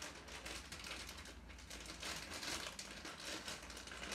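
Plastic mailing bag crinkling and rustling irregularly as it is gripped, twisted and pulled by hand to tear it open.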